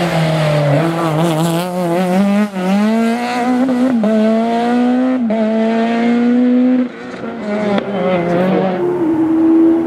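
Peugeot 306 Maxi rally car's four-cylinder engine revving hard. Its pitch climbs and drops back several times, with a short lift near the end.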